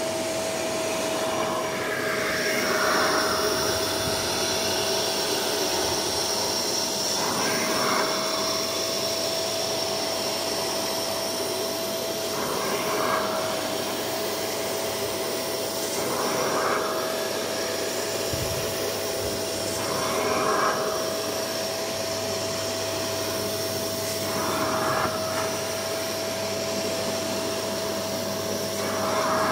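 Spray-extraction vacuum cleaner running steadily with a constant motor whine, its clear upholstery nozzle drawn in slow strokes over a carpet car mat. Each stroke brings a brief swell in the suction sound, about every four to five seconds.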